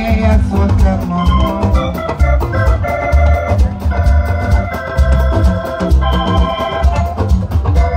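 Live highlife band music: an electronic keyboard on an organ sound holds chords over a pulsing bass guitar and drum kit.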